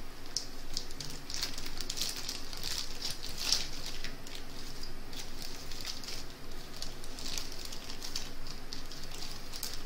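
Clear plastic bag crinkling and rustling in the hands as it is opened and its contents are pulled out, with irregular crackles and a sharper crackle about three and a half seconds in.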